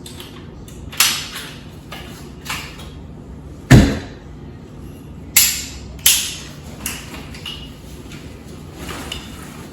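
Springfield Saint Victor AR pistol being broken down by hand: a series of sharp metallic clicks and clacks, about seven in all, with one heavier knock about four seconds in.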